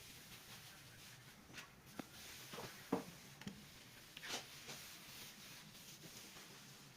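Faint, scattered light knocks and short scrapes over a quiet background; the sharpest knock comes about three seconds in.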